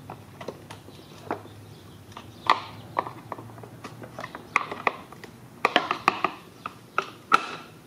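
Irregular clicks and snaps of plastic, sparse at first and bunching up in the second half, as the broken bumper cover's tabs are pried out of a Lincoln MKX grille assembly one by one.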